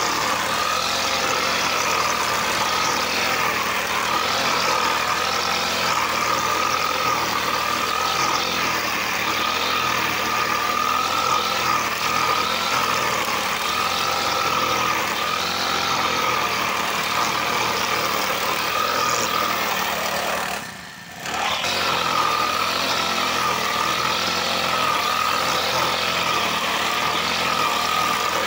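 Brush cutter running at high speed with its nylon-line head cutting tall grass, a steady engine whine whose pitch wavers slightly as the line meets the grass. The sound dips briefly for about half a second roughly three-quarters of the way through.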